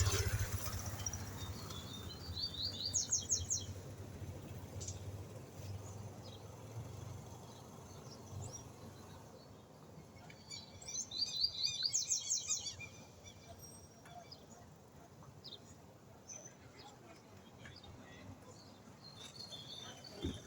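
Small birds singing: two bursts of fast, repeated high notes, one about two seconds in and another about ten seconds in, with scattered short chirps between. Under them is a low background rumble of noise pollution that fades out after about eight seconds.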